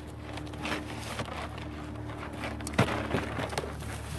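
A folding boat's plastic panels being collapsed and handled: rustling and scraping, with several sharp clicks and knocks from about three seconds in.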